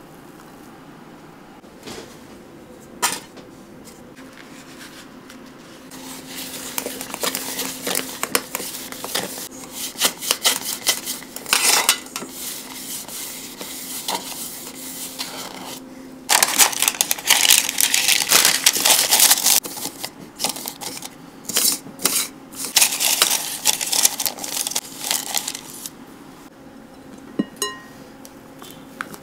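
Baking parchment paper crinkling and rustling in repeated bursts as it is folded and pressed into a round metal cake tin. It is loudest a little past the middle.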